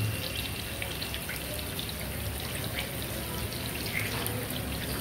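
Hot oil sizzling with scattered small pops and crackles: a ground onion, ginger and garlic paste frying in a pot, with rohu fish steaks shallow-frying in the pan beside it.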